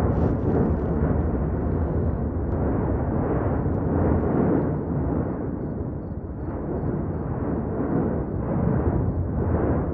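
Erupting volcanic vent: a loud, continuous deep rumble that swells and eases in uneven pulses, with a short crackle of higher sound about a second in.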